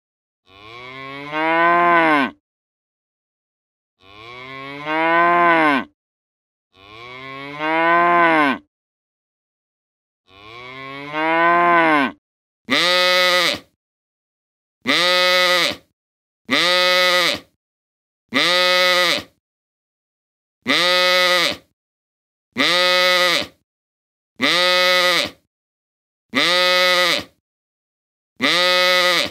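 Farm animals calling: four long calls that arch up and down in pitch, then, from a little under halfway, a run of about ten shorter calls evenly spaced, roughly one every second and a half.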